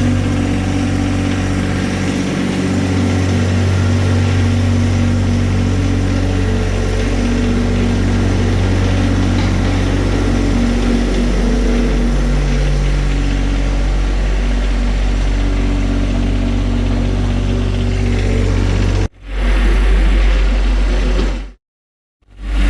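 John Deere 1025R subcompact tractor's three-cylinder diesel engine running steadily. The sound breaks off abruptly twice near the end, the second time into a moment of silence.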